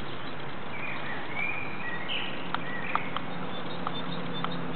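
Birds chirping in short calls over a steady outdoor hiss, with a few light clicks and a faint low hum setting in about three seconds in.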